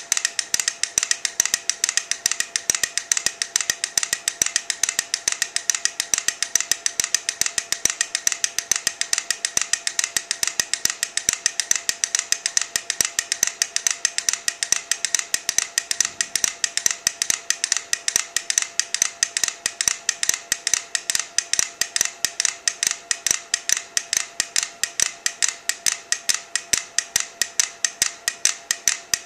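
Four small mechanical metronomes ticking together, a rapid stream of sharp clicks several times a second in an uneven, overlapping rhythm.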